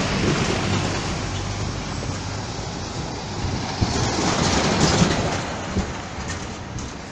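City bus driving past close by: engine rumble and road noise with a few body rattles and knocks, loudest about four to five seconds in, then fading away.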